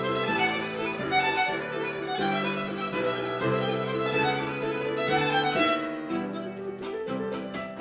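Violin and piano playing a duet together. About six seconds in the violin drops out and the piano carries on alone.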